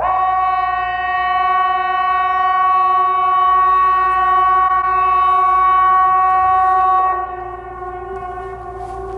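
Civil-defence outdoor warning siren sounding one steady, unwavering tone. It comes in suddenly, holds loud for about seven seconds, then drops away to a fainter tone echoing from further sirens across the city. The roughly seven-second blast matches Sweden's public warning-system signal.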